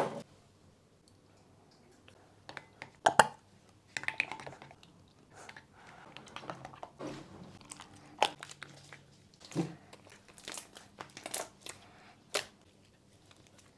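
Hands squishing and poking butter slime, giving irregular sticky clicks and pops with short squelching sounds in between.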